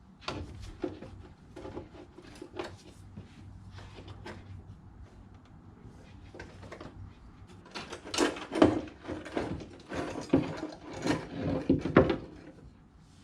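Tools and parts being handled during hands-on repair work: scattered knocks and clatter, growing busier and louder in a cluster of sharp knocks in the second half.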